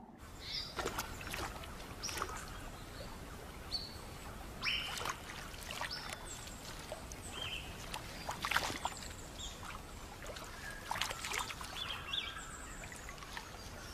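River water splashing and dripping as a net is hauled and handled at the water's edge, with scattered knocks. Many short, high chirps sound throughout.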